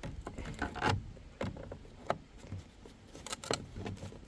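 Scattered light clicks and knocks of hands working at the plastic wing-mirror housing and the cable tie that holds the mirror part, with a cluster of clicks about a second in and another a little after three seconds.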